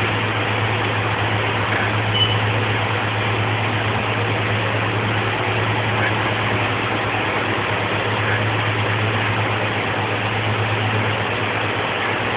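Steady hiss with a constant low hum underneath, unchanging throughout.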